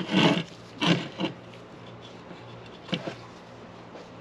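Four short scraping and rustling handling noises as new starter rope is worked through the recoil starter housing of a Stihl 010 AV chainsaw. A steady low hum runs underneath.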